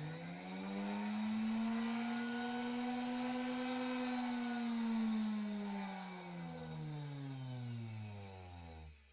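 A motor-like drone that rises smoothly in pitch over the first few seconds, holds, then slowly winds back down and cuts off abruptly near the end.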